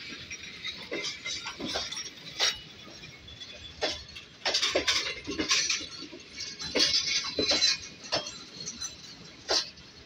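Passenger train coaches rolling slowly past as the train departs, their wheels and bogies giving irregular sharp metallic clicks and clanks, bunched together about four and a half and seven seconds in.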